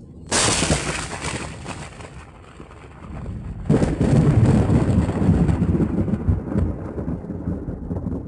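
Thunder in a rainstorm: a sharp crack just after the start that fades over a couple of seconds, then a second, louder clap about halfway through that rolls into a long, deep rumble, over steady rain.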